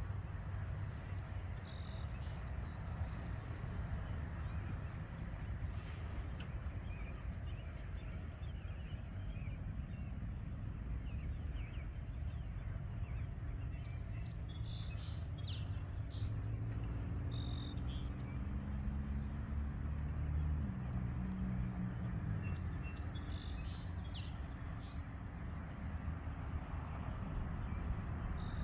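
Outdoor street ambience: a steady low rumble with songbirds chirping in short clusters, busiest about halfway through and again near the end. A low engine-like hum rises in pitch through the middle.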